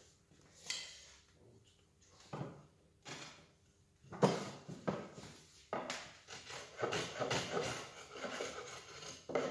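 Japanese hand plane (kanna) cutting a chamfer along the edge of a square wooden block. A few separate wooden knocks and strokes come first, then a quick run of short plane strokes through the second half.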